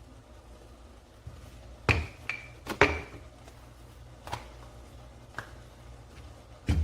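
About six sharp knocks and clacks, a few with a short ring, from a wooden rolling pin knocking on the board while chapati dough is rolled out. The loudest come about two and three seconds in, with another near the end.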